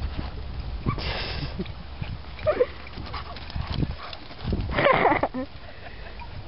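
Dogs playing rough at close range: paws thudding on dirt as they run past, with two short vocal sounds from the dogs, a brief one about two and a half seconds in and a louder one around five seconds in.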